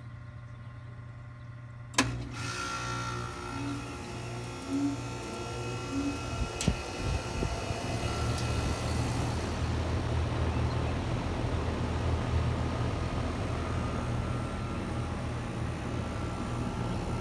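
Carrier central air conditioner's outdoor condensing unit running just after start-up, a steady compressor hum with fan noise. A sharp click about two seconds in, after which the running sound is louder and fuller.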